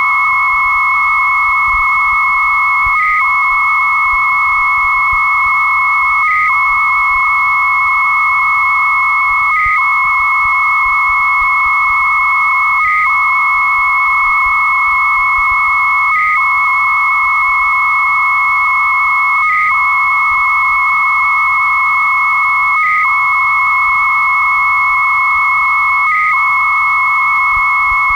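Two 300-baud dial-up modems transferring a file over a phone line. One modem sends a continuous warbling data tone around 1 kHz while the other holds a steady higher tone near 2 kHz. Both break off briefly about every three seconds, eight times.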